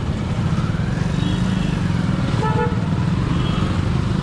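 Motorcycle engine running with road and wind noise as the bike rides along, a steady low rumble. A vehicle horn gives a short toot about halfway through.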